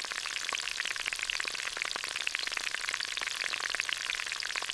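Food sizzling and frying in a hot pan on a stove: a steady, dense crackle.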